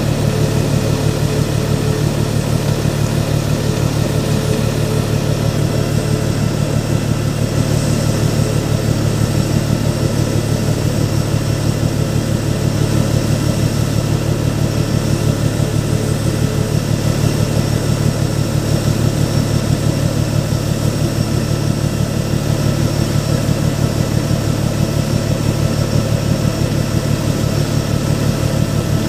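Steady engine drone, idling, with a fast even pulse in its low rumble and faint steady high-pitched whines above it.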